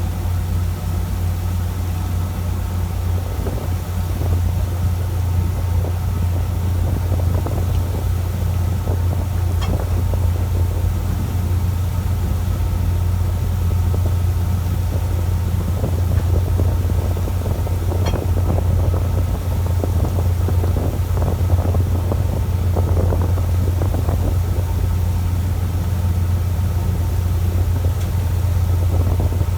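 Fishing boat's engine running steadily with a low drone, with an irregular rushing noise over it.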